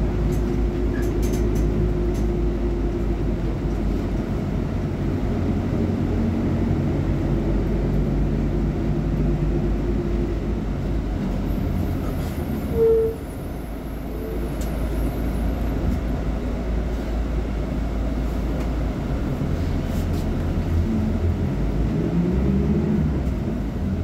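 Volksbus 17.230 OD Euro V diesel bus engine idling with a steady low rumble. About halfway through there is a short, sharp blip, after which the engine sound dips for a moment and then comes back up.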